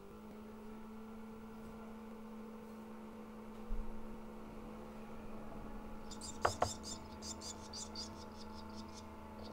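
Barn swallow nestlings begging: a rapid run of high, thin calls, several a second, starts about six seconds in, just after two sharp clicks. Under it runs a steady electric motor hum, and there is a low thump a little before the middle.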